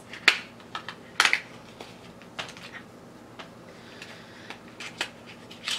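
Scattered light clicks and taps with faint rustling as a small taped eyeshadow package is handled and opened by hand; the sharpest clicks come about a second in.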